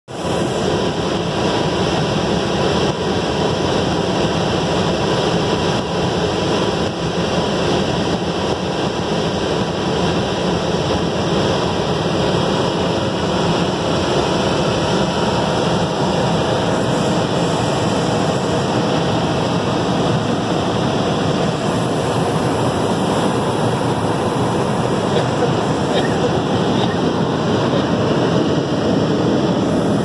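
Helicopter in flight heard from inside the cabin: a loud, steady noise of rotor, engine and rushing air, with a faint steady hum in it.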